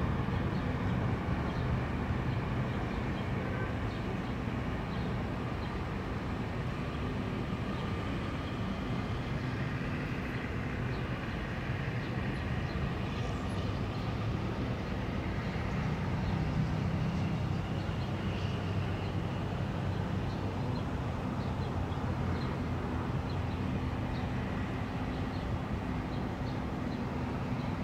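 Distant helicopter, a steady low droning hum that holds its pitch throughout, with faint scattered ticks above it.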